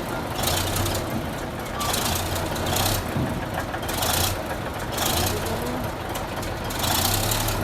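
Reversing alarm on a heavy bulldozer, pulsing about once a second while it backs, over the steady run of its diesel engine.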